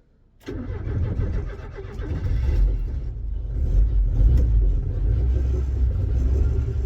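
Ford Cortina P100 pickup's engine starting about half a second in and running with a low steady rumble, started in second gear with the clutch pedal held down to try to break rust-stuck clutch plates free.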